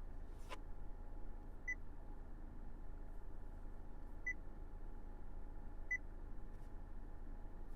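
Three short, high electronic beeps at uneven intervals over a steady low hum, with a single sharp click about half a second in.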